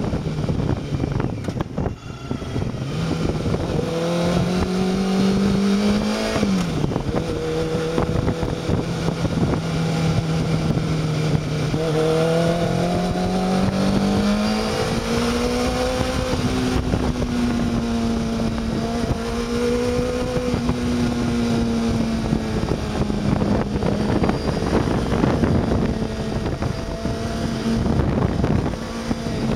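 Honda CBR600 F2's inline-four engine running under way, heard from the rider's seat, its note dropping abruptly about six seconds in and climbing again near the middle, with steady wind rush over the microphone.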